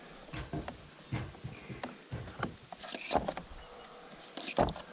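Irregular rustling, scraping and light knocks as a camera's power cable is handled and pulled through a hole against vinyl soffit and siding, with a louder thump near the end.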